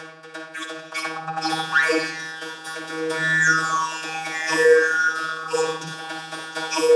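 Droning, music-like sound effect: a steady buzzing drone with several slides in pitch sweeping over it, mostly falling, one rising.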